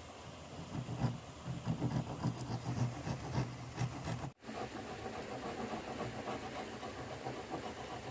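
A narrow hand saw cutting a round hole through a wooden plank, with back-and-forth strokes in a steady rhythm. About four seconds in it gives way to the steady rushing noise of a shallow stream.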